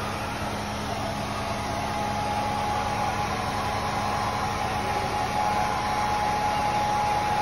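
Philips hair dryer running steadily: a constant rush of air with a steady whine through it, growing slightly louder in the second half.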